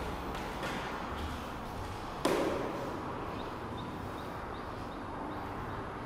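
A single sharp knock or thud about two seconds in, ringing briefly in a reverberant space, over steady background noise; a few faint high chirps follow near the middle.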